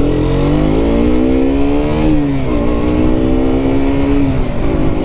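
Single-cylinder engine of a KTM RC 125 motorcycle accelerating under way: the engine note rises, drops about two seconds in as a gear is changed, climbs again and drops once more near the end with the next shift.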